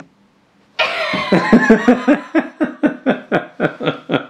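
A woman laughing out loud: it breaks out about a second in and runs on as a string of short, evenly spaced 'ha' pulses, about four a second.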